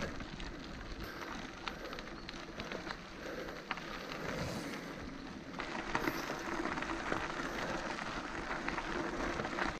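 Mountain bike tyres rolling over a gravel road: a steady crunching hiss with small clicks from loose stones, growing fuller about five and a half seconds in.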